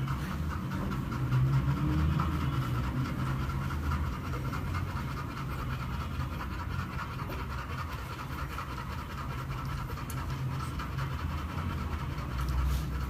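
Nursing chocolate Labrador mother dog panting steadily and rapidly.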